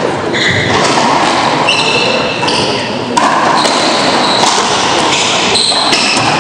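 Racquetball rally in a court: sharp cracks of the ball off racquets and walls echoing in the hall, and several short high squeaks of sneakers on the hardwood floor, over a steady background of hall noise and voices.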